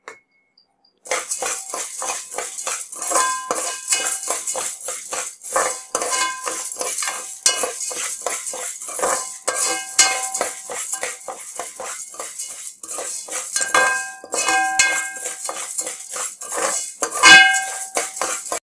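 Mung beans rattling and scraping against the bottom of an aluminium pressure cooker as a spatula stirs them while they roast. The pan rings briefly now and then, the loudest clank comes near the end, and the stirring stops suddenly just before the end.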